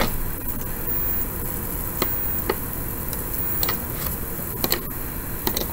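Computer mouse clicking: a few scattered single clicks, a second or so apart, over a steady hiss of microphone noise.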